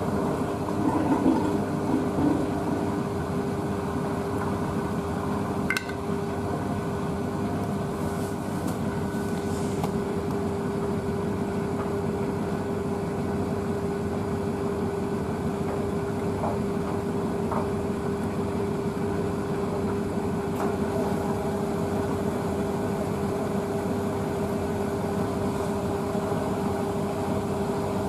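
Blomberg WNF9448 front-loading washing machine draining, its drain pump humming steadily under the noise of the drum turning the load to spread it for the spin. A bulky dog blanket is keeping the load from balancing. There is a brief click about six seconds in.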